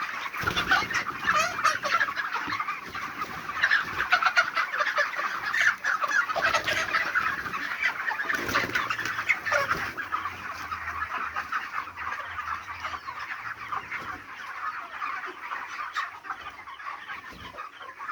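A brood of young broiler chicks peeping without a break, many short high chirps overlapping.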